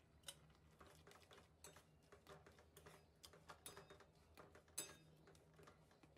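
Faint, irregular clicks and scrapes of a spatula stirring curry in a metal karahi, with a few louder taps against the pan, over a low steady hum.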